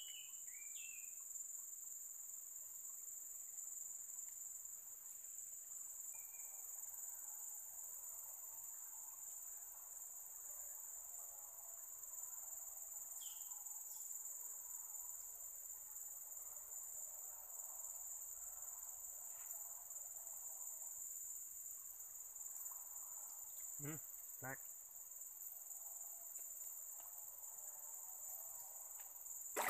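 Steady chorus of insects in tropical forest, a continuous high-pitched drone in two unbroken tones. Two brief faint knocks come about 24 seconds in.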